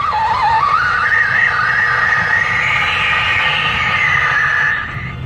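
Sandstorm wind whistling around a truck cab: a loud, high, wavering whistle that rises and falls irregularly with the gusts over the rumble of the truck. It cuts off abruptly near the end.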